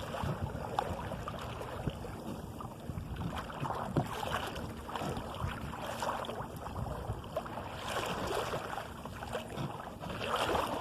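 Water splashing and lapping against the hull of a sailing canoe under way, in irregular swells.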